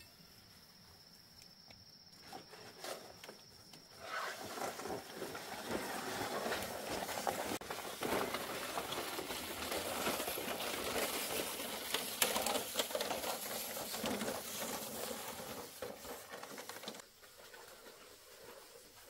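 Dense rustling and crackling with many small clicks, starting about four seconds in and dying down near the end.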